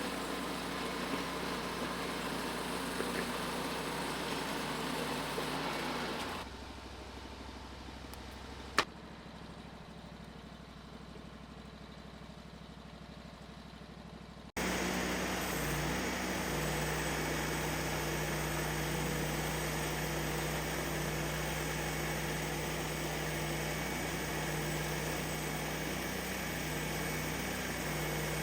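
Portable sawmill's gasoline engine running at a steady speed. The sound drops away to a quieter level about six seconds in, with a single sharp click, then returns abruptly about halfway through.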